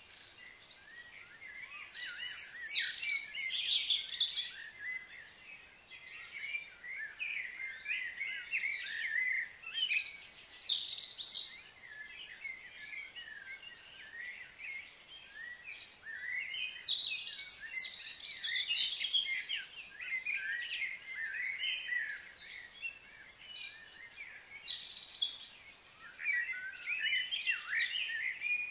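Many birds chirping and twittering at once, their calls overlapping in waves that swell and fade every few seconds.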